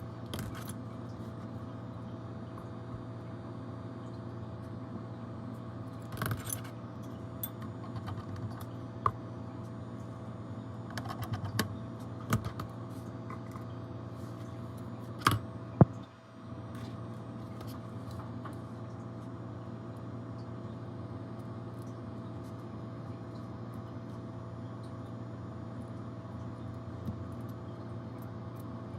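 Steady low electrical hum with a few small, sharp clicks and taps scattered through the middle, the sharpest about 15 seconds in. The hum dips briefly just after them.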